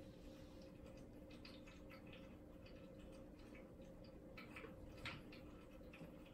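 Near silence: room tone with a faint steady hum and a few soft, irregularly spaced clicks, the clearest about five seconds in.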